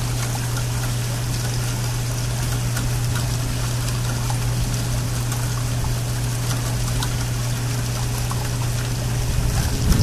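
Steady rain during a thunderstorm, with water running and trickling, scattered drop ticks and a steady low hum underneath.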